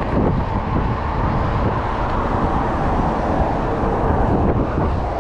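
Steady wind and road noise from riding a mountain bike on a road among traffic, with a low rumble of wind on the microphone.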